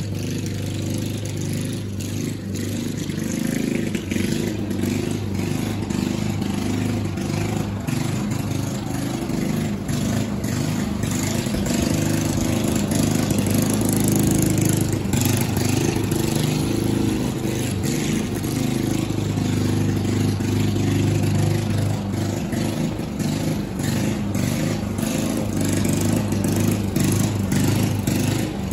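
Walk-behind gas lawn mower engine running steadily while cutting grass, growing a little louder toward the middle as it moves across the yard.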